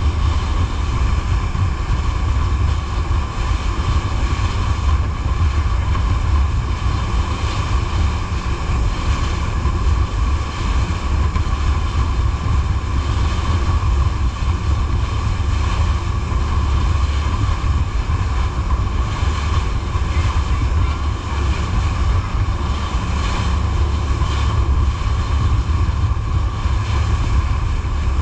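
Jet boat under way at steady speed: a constant low engine rumble with a steady mid-pitched whine, water rushing past the hull and wind buffeting the microphone.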